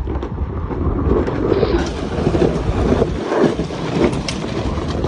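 Off-road caravan being towed over rough ground: a steady rumble with scattered knocks and rattles, and wind buffeting the microphone.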